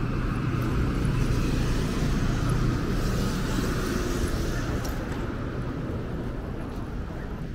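Road traffic on a busy multi-lane city avenue: a steady rumble of passing cars that swells over the first few seconds and then slowly fades.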